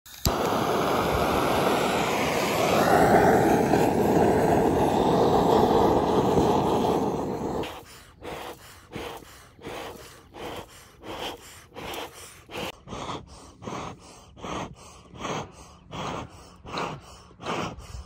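A loud, steady rushing noise for the first seven or so seconds, ending abruptly. Then a bee smoker's bellows being pumped, giving regular short puffs of air about one and a half times a second.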